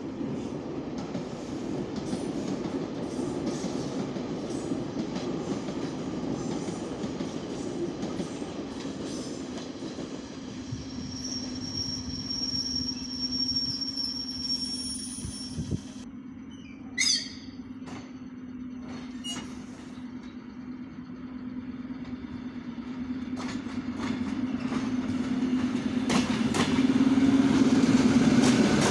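ER9M electric multiple unit approaching and passing close by, with a steady low electric hum throughout. A high thin whine runs for a few seconds in the middle, and a brief sharp high sound comes a little past halfway. Wheel and car noise grows louder near the end as the carriages roll past.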